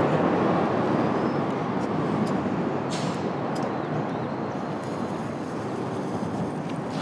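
Steady outdoor background rumble, easing off slightly, with two sharp clicks about three seconds in.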